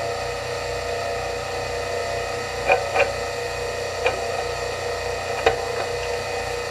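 Small motorised copper wire stripping machine running with a steady motor and gear hum, with a few sharp clicks as wire is fed into it.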